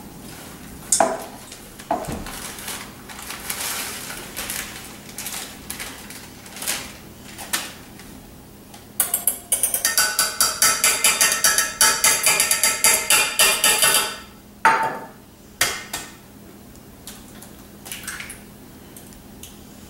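Metal kitchenware being handled over a stainless steel mixing bowl: scattered clinks and knocks, with about five seconds of rapid metal-on-metal strokes, several a second, a little before halfway, and a couple of sharper knocks just after.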